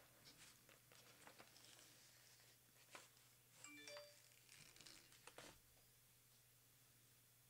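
Near silence: quiet room tone with a low hum, faint scattered clicks and crackles, and a few brief faint tones about halfway through.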